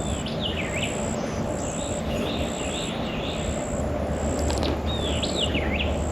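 A songbird calls twice, each phrase a quick swooping whistle falling in pitch, one near the start and one about five seconds in, with some softer chatter between. Behind it an insect gives a high buzz about once a second over steady outdoor noise.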